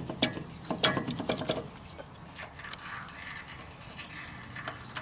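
Metal clinking and rattling as a semi truck's roller wheel bearing is worked loose by hand from the hub: several sharp clinks in the first second and a half, then quieter handling noise.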